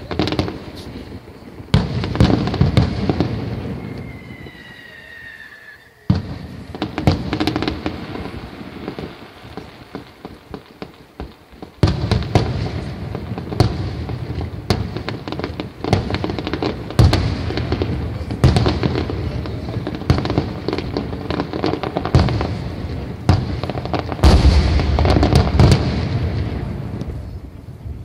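Aerial fireworks display: repeated booms and crackling bursts, with a falling whistle about four seconds in. About twelve seconds in the explosions become a near-continuous barrage, loudest a few seconds before the end.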